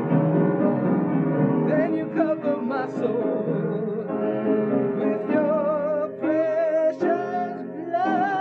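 A song with keyboard accompaniment. About two seconds in, a singer comes in, holding long notes with a wide, operatic vibrato.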